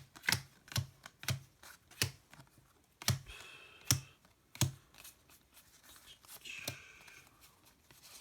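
Trading cards being handled and set down on a table while being sorted: irregular sharp clicks, about one or two a second, with a couple of short sliding rustles.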